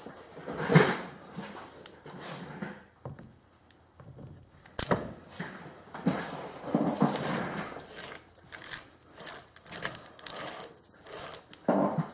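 Parts of a Hardinge Sjogren collet chuck being handled during reassembly: knocks and scrapes of the steel chuck body being lifted and lowered onto the greased gear half, a sharp metallic click a little before five seconds in, and a run of small clicks and rubs near the end as it settles into place.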